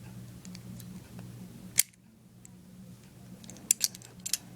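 Sharp metallic clicks from handling an open antique lever padlock: one loud click a little under two seconds in, then a quick cluster of four or five clicks near the end, over a low steady hum.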